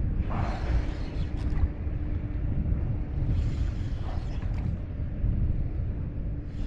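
A fishing reel cranking and creaking as a hooked trout is reeled in, over a steady low rumble with a few brief bursts of hiss.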